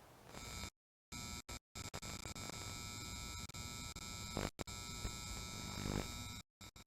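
Faint electronic buzzing hum made of several steady high tones, cutting out completely for brief moments a few times.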